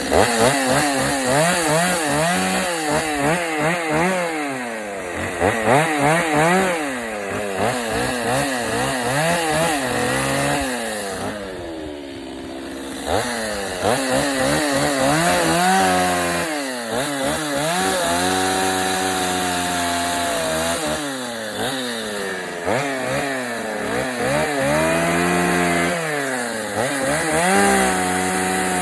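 Chainsaw cutting into a wooden log, its engine revving up and down with each cut and at times holding steady under load, easing off briefly a little before the middle.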